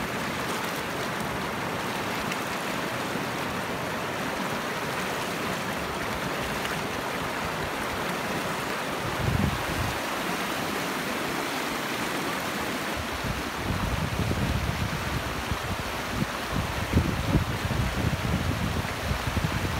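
Fast mountain river rushing over rocks: a steady hiss of flowing water, with a low rumble that comes and goes from about halfway through and more in the last few seconds.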